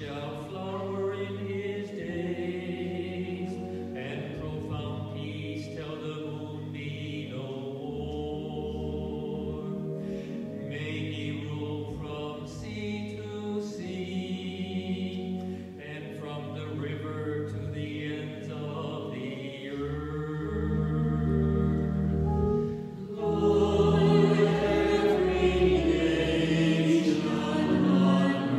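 Responsorial psalm sung in church, voices held over long, steady low accompanying notes. It grows louder about 23 seconds in.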